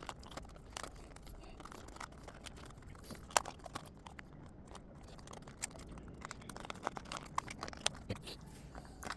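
Light rustling and scattered small clicks of packaging being handled while a quick release part is worked out of it, with one sharper click about three and a half seconds in.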